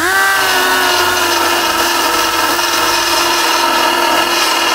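A handheld power sander spins up with a quick rising whine, then runs at a steady pitch while sanding the paint on a car body panel. It is grinding down to the round low spot that shows where a factory spot weld, or nugget, sits.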